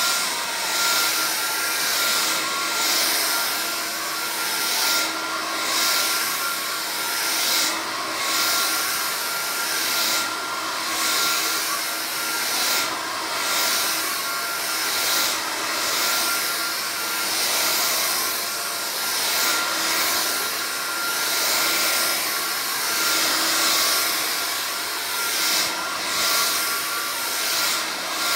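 Vax Air Cordless vacuum cleaner running, a steady motor whine over airflow hiss. The sound swells and fades in a regular rhythm about every two and a half seconds.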